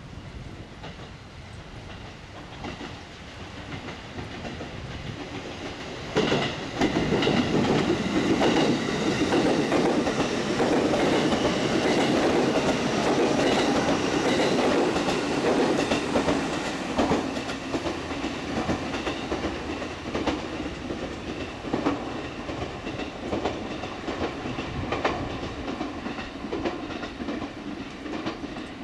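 JR Central 313 series electric multiple unit, six cars (2+4), passing through a station without stopping. It approaches, then goes by loudly from about six seconds in with its wheels clicking over rail joints, and fades as it moves away.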